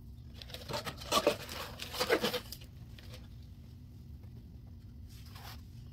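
Baking soda being handled over dry sponges: crinkly rustling from the plastic bag and the spatula. It is loudest in two bursts about one and two seconds in, with a softer rustle near the end.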